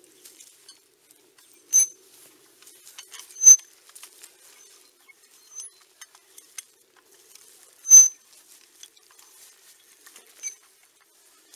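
Metal tines of a long-handled garden cultivator scratching and crackling through loose soil. Several sharp metallic clinks ring briefly, the loudest about three and a half and eight seconds in.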